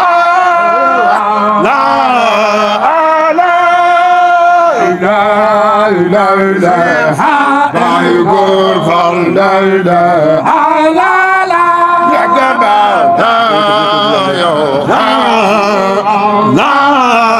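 Baye Fall kourel of men chanting a zikr, the lead singer amplified through a handheld microphone, in long held notes that waver and bend between phrases.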